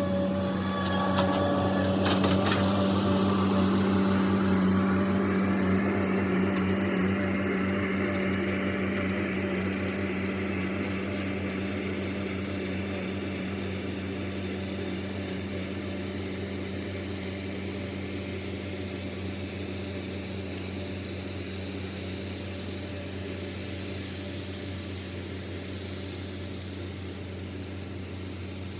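A diesel engine running steadily, slowly fading away, with a few sharp clicks about two seconds in.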